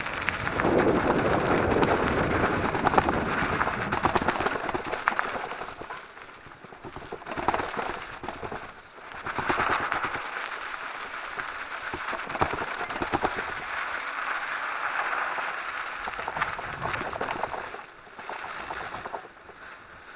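Electric mountain bike's tyres crunching and rattling over a loose gravel and sand track, with many sharp clicks and knocks from the bike jolting over stones. The noise is loudest over the first few seconds and dies down briefly a few times, most of all near the end.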